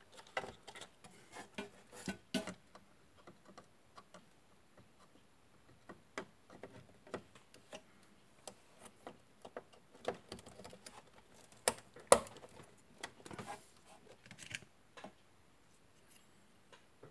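Irregular small clicks and taps of hands working inside an open desktop PC case, handling cables and parts, with a couple of sharper knocks about twelve seconds in.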